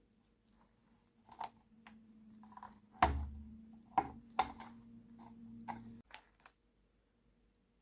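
Small plastic toy kitchen pieces being handled, giving a run of light, irregular clicks and taps, with a faint low hum in the middle stretch that stops abruptly about six seconds in.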